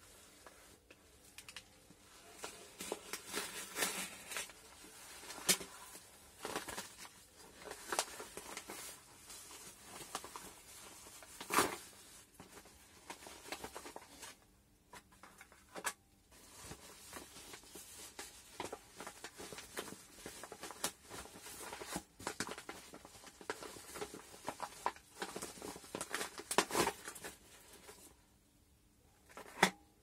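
A bubble-lined yellow paper mailer being slit with a utility knife and torn open, its paper crackling and rustling, then crinkling plastic blister packs being pulled out and set down. Scattered sharp taps and clicks run through it, the loudest about twelve seconds in.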